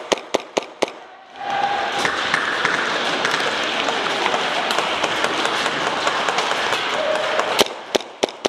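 Airsoft guns firing in a warehouse: four sharp cracks in the first second and a few more near the end, with a steady loud rush of noise between them.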